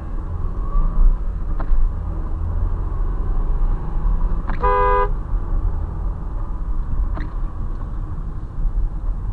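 Steady low road and engine rumble heard inside a moving car, with one short car-horn beep about halfway through, lasting about half a second.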